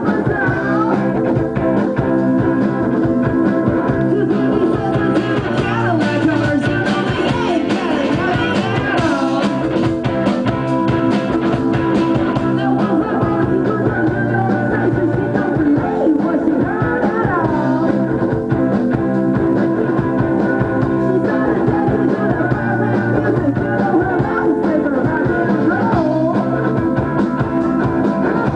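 Rock band playing a song live, loud and continuous.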